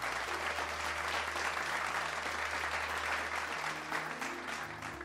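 Seminar audience applauding, with music playing underneath; the applause fades away near the end while the music carries on.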